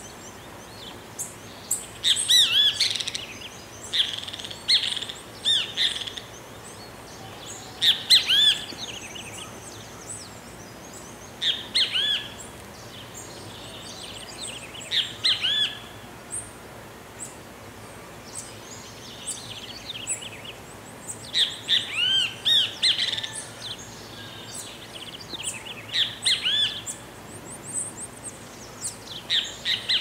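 Great kiskadee (bem-te-vi) calling, loud arched notes given in clusters every few seconds with a quiet spell of several seconds midway.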